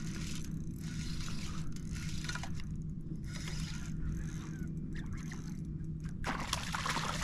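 Water lapping and sloshing with wind noise on the microphone, over a steady low hum; the sound grows louder and fuller about six seconds in.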